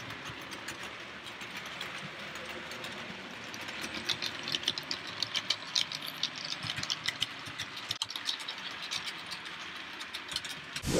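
OO gauge model diesel locomotives running on the layout's track: a steady mechanical running noise with rapid, irregular clicking of wheels over the rails, which gets busier about four seconds in.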